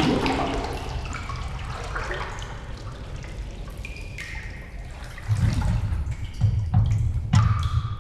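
Underwater sound-effect ambience: bubbling, gurgling water, joined about five seconds in by louder low rumbling surges.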